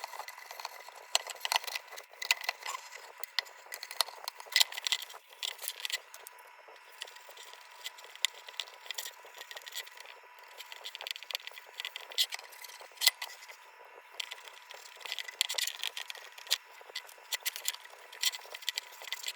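Metal parts of an Embury Air Pilot No. 2 kerosene lantern being handled and fitted by hand: irregular sharp clicks, light rattles and scrapes of sheet metal, with brief lulls between bursts.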